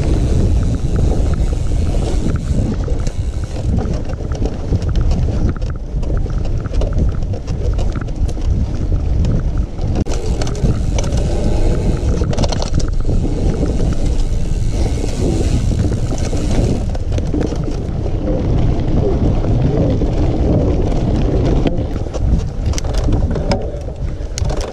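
Wind rushing over the microphone of a camera riding on a moving mountain bike, with scattered rattles and knocks from the bike over rough ground.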